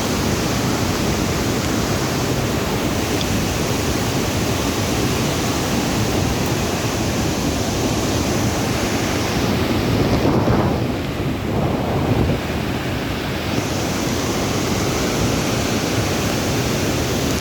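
Waterfall rushing in a steady, loud roar. About ten seconds in, a gust of wind buffets the microphone for a few seconds and muffles the sound.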